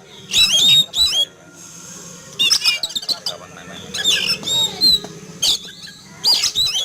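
Oriental magpie-robin (kacer) singing in loud bursts of short whistled phrases with sliding, rising and falling notes, about four bursts in the space of several seconds.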